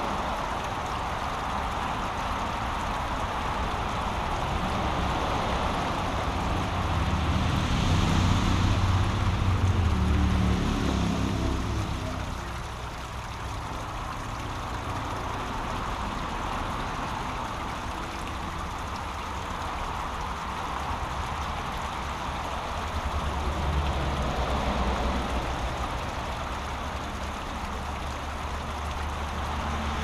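Brook water running through a small waterfall, a steady rushing hiss. A low rumble swells under it about a quarter of the way in and again later on.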